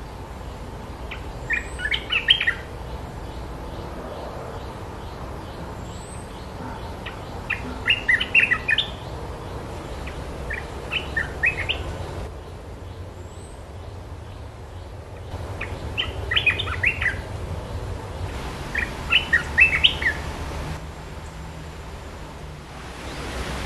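Olive-winged bulbul song: five short bursts of quick, bubbly chattering notes, a few seconds apart, with faint high chirps from another bird in between.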